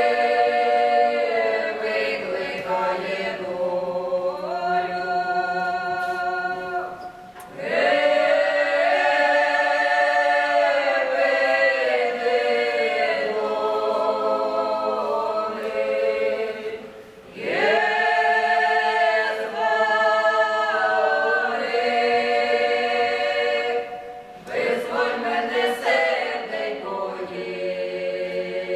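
Ukrainian folk ensemble of men's and women's voices singing an old Cossack song a cappella in drawn-out polyphony, with several parts holding chords. Long phrases are broken by three short pauses for breath.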